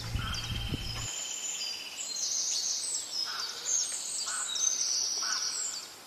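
Birds calling in a natural wetland setting: several high, thin trills and chirps overlap, and some trills are held for about a second. A low rumble lasts for about the first second, and the calls fade out near the end.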